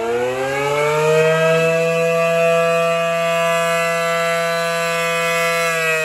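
ACA P-10 rotating outdoor warning siren sounding a test, several tones together rising in pitch over about a second and a half, holding steady and loud, then starting to fall near the end.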